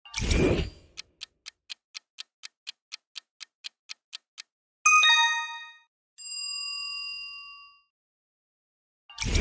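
Quiz-show sound effects: a short hit, then a clock ticking about four times a second for three seconds as a countdown, then a bright chime about five seconds in and a softer held tone that fades. Near the end another hit starts the ticking again.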